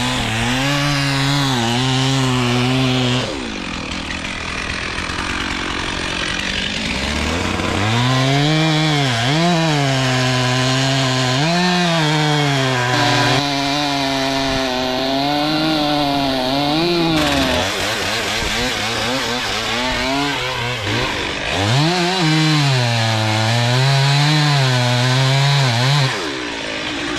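Two-stroke chainsaw cutting wood at full throttle, its pitch sagging and recovering as the chain bites. It drops to a lower, quieter speed twice, about three seconds in and again around seventeen seconds, and revs back up into the cut each time.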